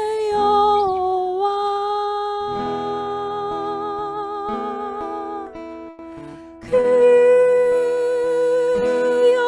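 A woman singing a slow Korean worship song to her own acoustic guitar, drawing out "여호와" (Jehovah) as one long note with vibrato. After a brief dip about six seconds in, she starts a new, higher held note over the guitar.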